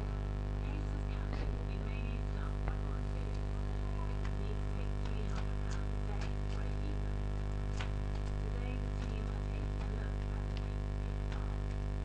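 Steady low electrical hum, with scattered light clicks and taps as a young barn owl chick climbs about on the wire bars of its cage.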